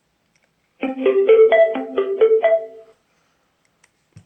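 A Bluetooth speaker plays its power-on start-up tune, a short run of about eight piano-like notes lasting some two seconds. It is the sign that the speaker powers up on its replaced battery.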